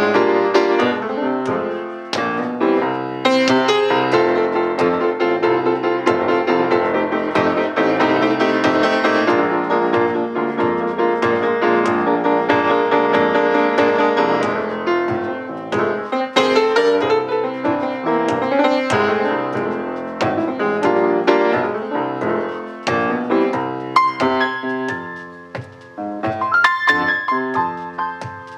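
Solo blues played on a transparent acrylic grand piano, thinning to quieter, sparser notes near the end.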